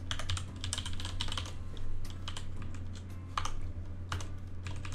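Typing on a computer keyboard: quick irregular runs of key clicks with short pauses between them, over a steady low hum.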